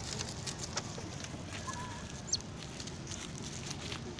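Dry leaf litter rustling and crackling underfoot, over a steady low rumble, with two brief high chirps near the middle.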